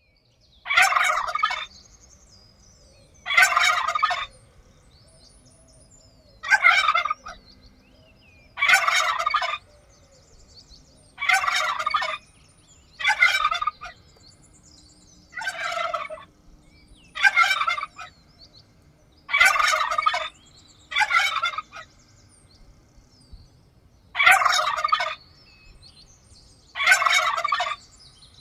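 Turkey gobbling over and over, about a dozen loud gobbles, each under a second long, coming roughly every two seconds.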